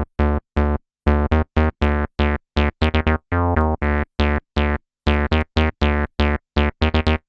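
Behringer TD-3 analog bass synthesizer playing an acid bassline sequence on its own, without drums: short, separate staccato notes, about three a second. Each note starts bright and turns darker as it dies away. A few notes near the middle are held longer.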